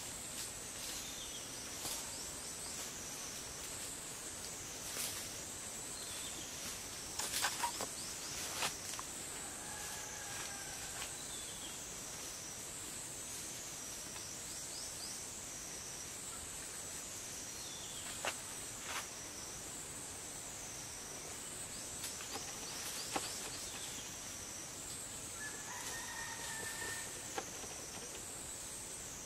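Steady high-pitched insect chorus that swells and fades in a repeating pattern, with scattered sharp clicks and snaps, a cluster of them about seven seconds in, and two short pitched calls, about ten seconds in and near the end.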